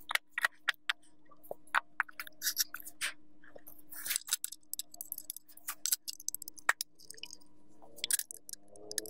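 Small metal screws clicking and scraping against a ceiling fan's metal motor cover as they are set into its holes and turned by hand: an irregular run of short, sharp clicks.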